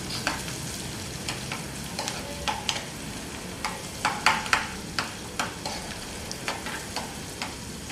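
Chopped capsicum and corn sizzling as they fry in oil and butter in a pan, with irregular clicks and scrapes of a metal spoon stirring them; a few louder knocks of the spoon on the pan about halfway through.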